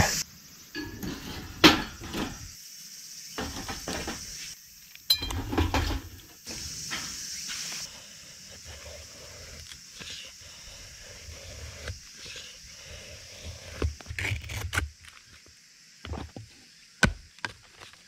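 Wood being handled with knocks and light clatter, and a knife shaving a stick into curls against a wooden stump: a series of short scrapes and knocks.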